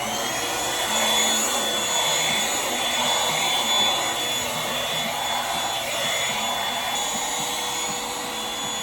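Electric appliance motor with a blower, reaching full speed with a rising whine at the start, then running steadily with a high whine over a rush of air.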